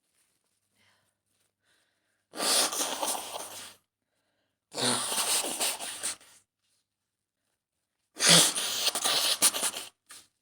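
A woman sneezing three times, a couple of seconds apart, each sneeze a loud burst lasting about one and a half seconds.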